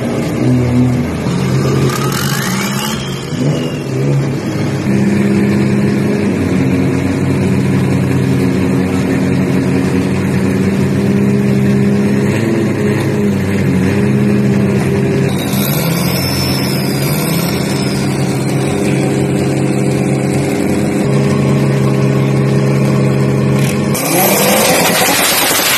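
Isuzu D-Max diesel drag pickup running at the start line with a steady engine drone, and a higher whine that rises and falls twice. Near the end it launches at full throttle with a sudden loud surge.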